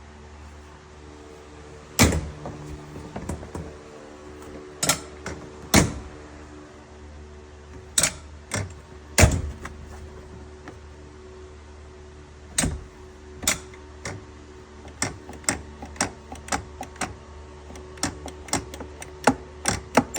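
Door latch and new lever opener on a Can-Am Maverick X3 being worked: a series of sharp clicks and clunks, several of them loud, coming quicker and closer together near the end, over a steady low hum.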